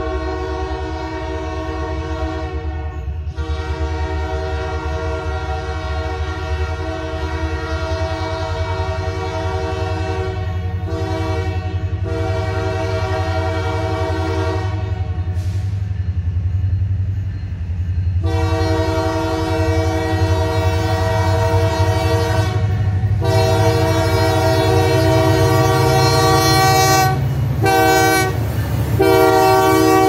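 Diesel freight locomotive's multi-note air horn sounding a long horn show: a chord held for several seconds at a time, broken by short gaps and one longer pause, over the low rumble of the locomotives' diesel engines that grows as the slow train draws near.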